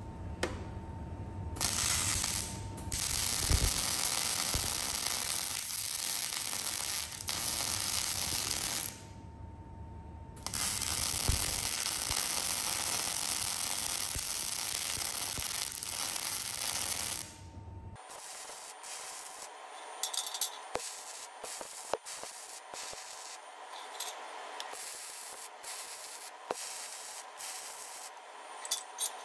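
Electric arc welding on steel tabs: two long welding runs of about seven seconds each, a steady crackling hiss with a short break between them. Quieter scattered clicks and taps follow in the second half.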